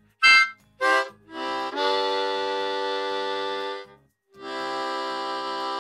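Harmonica played: two short chords, then two long held chords with a brief break between them.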